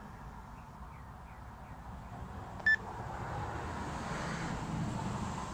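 A single short electronic beep from one of the digital handheld radios, about two and a half seconds in, over steady background noise that swells a little near the end.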